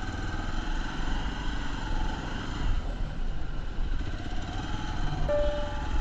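Motorcycle engine running at low speed as the bike rolls away, a steady low rumble with road and wind noise. A few tones of background music come in near the end.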